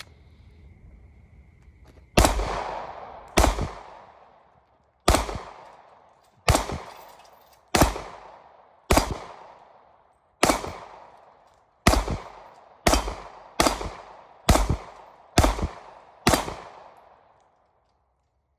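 Thirteen gunshots fired one at a time at an uneven pace of roughly one a second, each with a long echoing tail.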